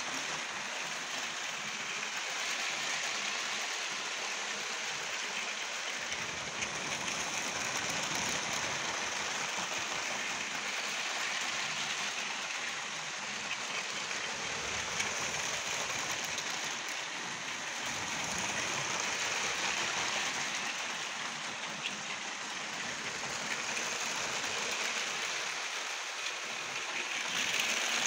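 Lego trains running on plastic track: a steady rattling hiss of wheels and small electric motors, swelling as a train passes close near the end.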